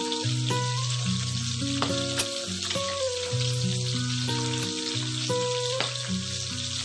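Milkfish steaks frying in hot oil in a pan: a steady sizzle with a few sharp pops. Under it runs background music of held notes that change every second or so.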